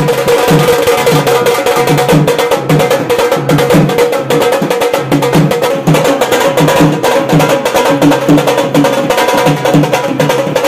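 Loud dhol drumming in a fast, steady dance rhythm.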